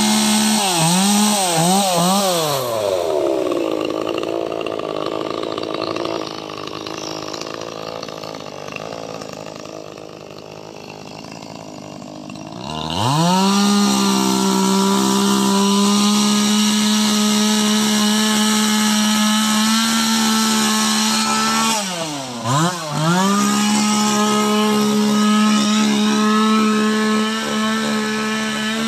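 Chainsaw running at high revs with a steady pitch. It dips briefly a couple of times, settles into a quieter, lower running for several seconds, then revs back up about halfway through and holds, with one more brief dip later on.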